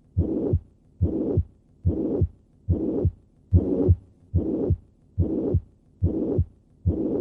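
Heart sounds of a patient with mitral regurgitation: a holosystolic murmur of constant intensity running from the first heart sound right up to the second on every beat. There are nine even beats at a little over one a second.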